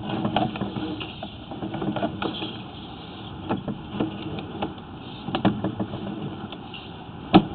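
Sewer inspection camera's push cable being pulled back onto its reel: a steady low mechanical hum with irregular clicks and knocks, a few louder ones near the end.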